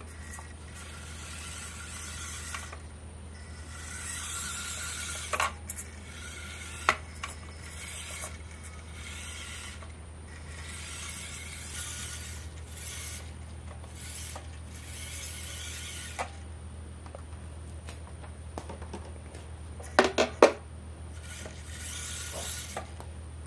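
Small electric motor and 3D-printed plastic gears of a 4WD RC pickup truck whirring in repeated runs of a second or two as the truck drives on a hard floor. A few sharp knocks come in between, with a quick cluster of them near the end.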